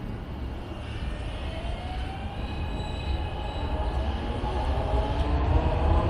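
Elevated Market-Frankford Line train running on the steel El structure overhead, with a low rumble and a whine that slowly rises in pitch, growing steadily louder.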